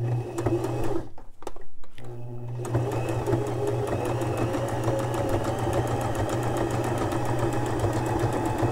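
Domestic sewing machine stitching a straight stretch stitch through a folded lycra hem. It runs for about a second, stops for about a second and a half, then runs steadily with a fast, even needle rhythm; the stitch feeds the fabric two steps forward, one step back.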